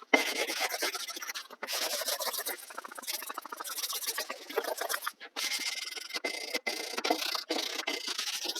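Hand sanding of a pine board with fine 320-grit sandpaper: quick back-and-forth rubbing strokes in a dense scratchy hiss, broken off by a few short sudden gaps.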